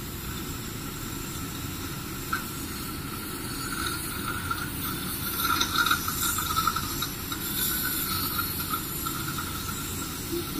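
Dental saliva ejector running in the patient's mouth during a tooth extraction: a steady suction hiss, with brief louder slurping patches in the second half.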